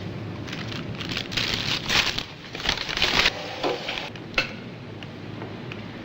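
Paper or plastic food wrapper crinkling and rustling in irregular bursts as it is handled, ending in one sharp crackle.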